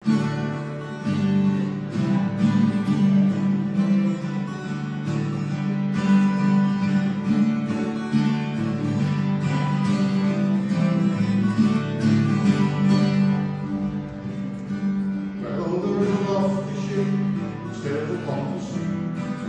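Two acoustic guitars strummed and played together in a steady rhythm as a song's introduction, with a man's singing voice coming in about three-quarters of the way through.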